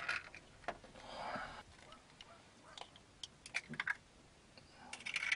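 Small objects being handled: scattered light clicks and taps, a brief rustle about a second in, and a quick cluster of clicks near the end.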